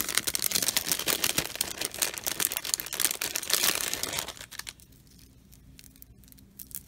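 Clear plastic bead bag crinkling as a strand of agate beads is pulled out of it. The crinkling stops about four seconds in, leaving a few faint clicks.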